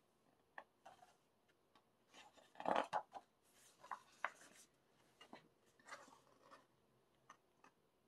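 Pages of a large photo book being turned and handled: paper rustling with light taps, loudest about three seconds in.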